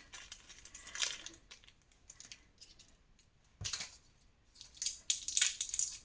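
Small medicine packets and bottles being handled, giving scattered rustles and light clicks. There is a dull thump about three and a half seconds in.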